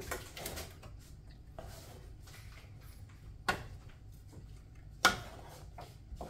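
Serving utensil scooping fried rice out of a large pan, with soft scraping and a few sharp knocks against the pan, the loudest about five seconds in.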